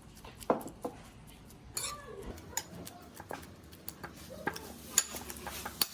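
A utensil clinking and knocking against a pan while cha-om (acacia) leaves are stir-fried, in scattered sharp taps.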